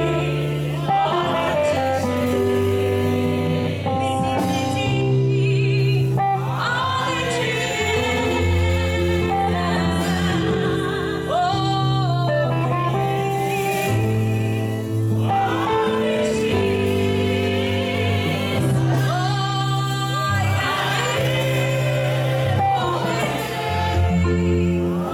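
Gospel music: singing in phrases over an instrumental backing with a steady, sustained bass line.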